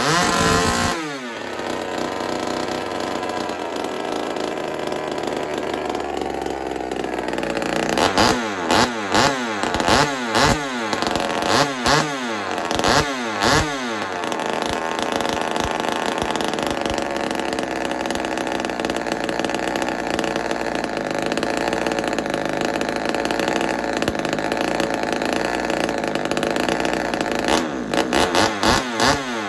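Ported Homelite XL-76 two-stroke chainsaw engine, without bar and chain and fitted with a stack muffler, running loud. It is blipped in a string of quick revs, then holds a fast, steady speed and does not drop fully back to idle, then is revved again near the end. The slow return to idle is a sign the saw still needs tuning.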